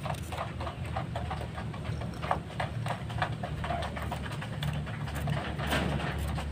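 A flat stick scraping droppings out of a small clay dish in quick, irregular strokes.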